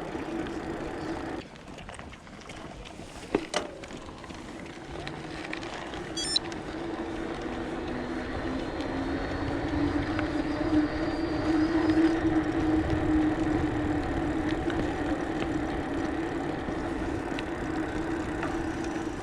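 A motor drones steadily, getting louder and rising slightly in pitch over the second half. There is a sharp click early on and a brief high ring a few seconds later.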